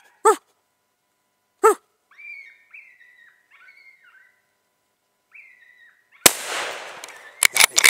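A single rifle shot at a coyote about six seconds in, with a long echo trailing off, followed by a few quick sharp clicks near the end. It comes after two short barks early on and faint squealing.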